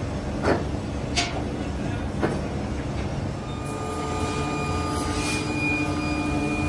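Steady roar of a scrap-melting foundry furnace, with three ringing clanks of scrap iron pieces being tossed in during the first couple of seconds. After about three and a half seconds a steady whine joins the roar.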